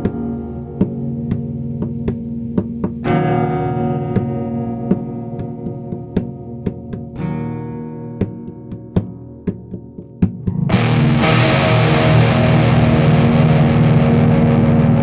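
Music: guitar chords struck and left to ring over a steady ticking beat. About eleven seconds in, a loud distorted guitar wash comes in.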